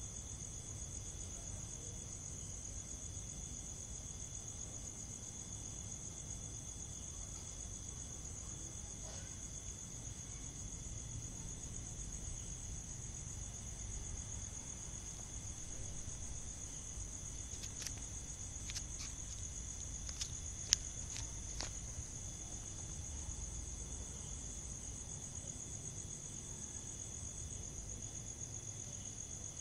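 Crickets chirring in a steady, high-pitched drone, with a few faint clicks about two-thirds of the way in.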